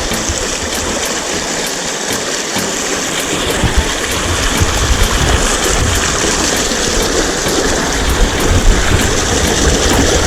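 Mountain creek water rushing and splashing steadily over rocks, with a low rumble joining in about two and a half seconds in.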